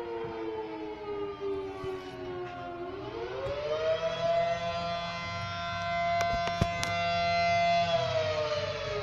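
Siren wailing: its pitch sinks slowly, climbs again about three seconds in, holds steady for about four seconds, then begins to fall near the end. Two short clicks come about six and a half seconds in.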